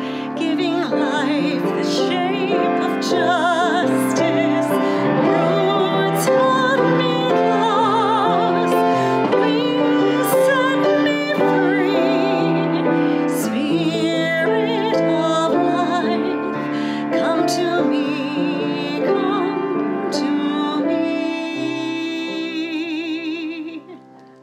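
Classical-style singing with strong vibrato over piano accompaniment, fading out near the end.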